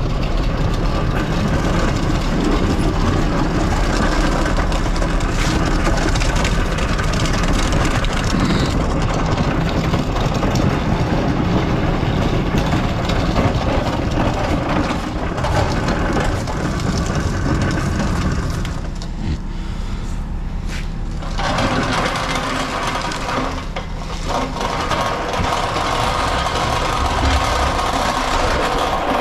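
A heavy truck engine running steadily, with occasional knocks and rattles over it.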